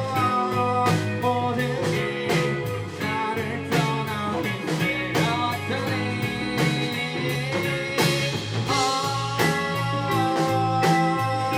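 Live rock band playing the song, with guitar chords and notes over drums keeping a steady beat.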